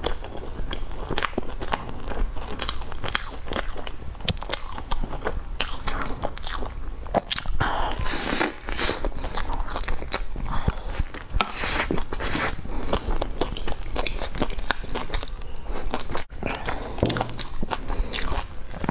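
Close-miked biting and chewing of soft cheese-filled buns topped with meat floss and seaweed: a dense, irregular run of mouth clicks and smacks.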